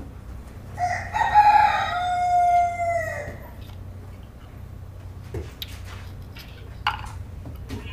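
A rooster crowing: one long crow of about two and a half seconds, its pitch stepping down partway through and then holding. A few light clicks follow later.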